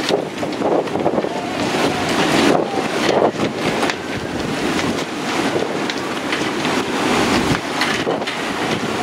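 Gale-force wind, around 50 knots, gusting hard across the microphone, with choppy harbour water sloshing against moored yachts and the quay.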